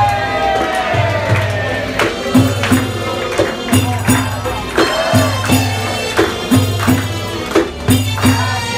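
Live Egyptian folk music for a tanoura dance: hand-held frame drums beat a steady, repeating rhythm of deep strokes and sharp slaps, under a held melodic line that falls slowly near the start.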